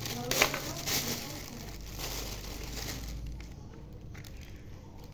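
Parcel packaging crinkling and crumpling as it is handled and opened by hand, with two sharp crackles in the first second. After about three seconds the crinkling thins out to a few faint ticks.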